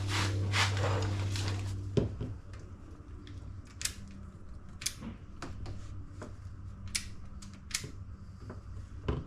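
Scattered sharp clicks and snips from hand tools cutting and splicing car wiring, a few per few seconds. A low steady hum fills the first two seconds and ends with a knock.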